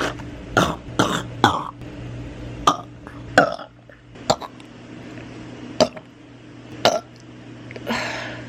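A woman burping: a low drawn-out burp near the start and a rougher, raspier one near the end, with short sharp mouth clicks and smacks in between.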